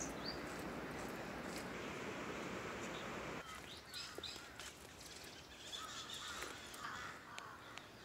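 Outdoor ambience: a steady rushing noise, which drops off abruptly about three seconds in, after which small birds chirp and call on and off.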